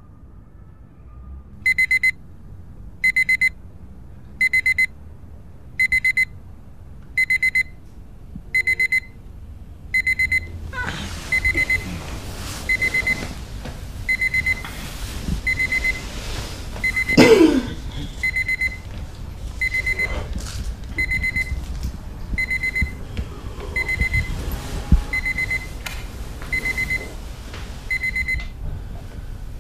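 Digital alarm clock beeping: short bursts of rapid high-pitched beeps, repeating about every second and a half. From about ten seconds in, noise and a few knocks sound underneath. The beeping stops near the end.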